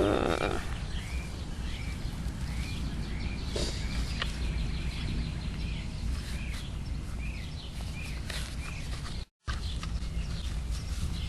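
Outdoor ambience with a steady low rumble, and a short chirp repeated about every half second that fades out after about seven seconds.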